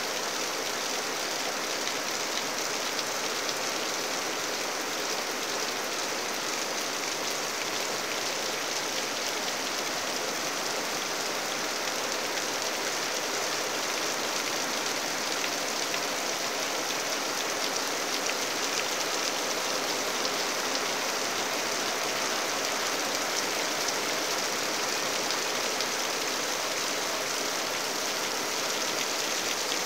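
Steady rain falling on foliage and leaf litter, an even hiss without breaks.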